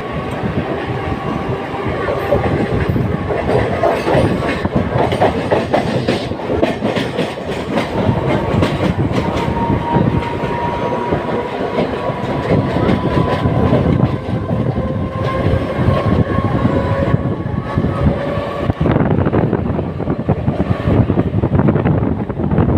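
Mumbai suburban electric local train running at speed, heard from on board: wheels clatter over the rail joints over a continuous rumble, with a faint steady whine.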